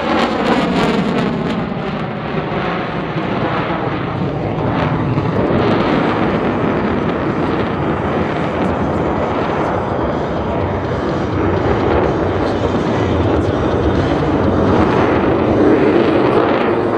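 F-35A Lightning II's Pratt & Whitney F135 turbofan jet engine running loud and continuous as the jet flies a loop, the pitch of its whine sliding down and up as the aircraft moves past and turns.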